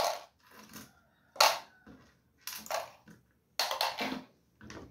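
A handful of short rustling, scraping handling noises, spaced about a second apart.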